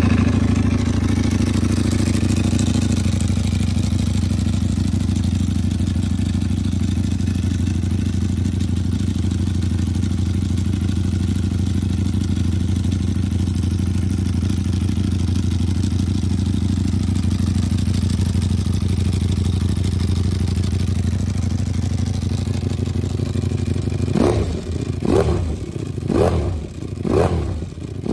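Ducati Panigale V4 R's 998 cc V4 engine through a Termignoni exhaust, just started. It idles a little high at first, settles to a steady idle with the rattle of its dry clutch, then takes about five sharp throttle blips roughly a second apart near the end.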